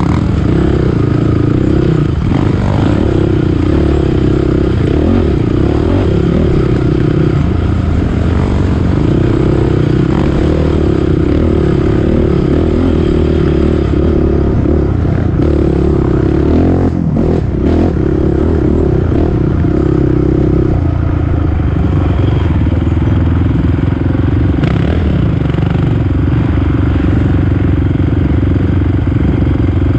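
ATV engine running hard at race pace. Its pitch steps up and down with throttle and gear changes, with a brief drop about halfway through.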